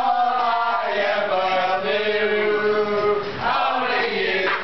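Two men singing together, drawing out long held notes, with a short break about three seconds in.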